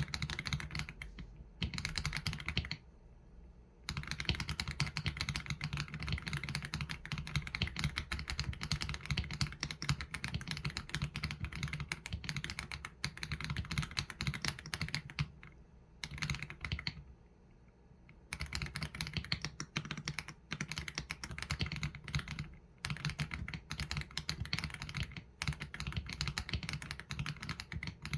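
Fast, continuous typing on an AULA F87 Pro mechanical keyboard with Leobog Graywood V3 linear switches and PBT keycaps: rapid clacking keystrokes with a deep low thock, broken by a few short pauses, the longest near 3 s and 17 s in.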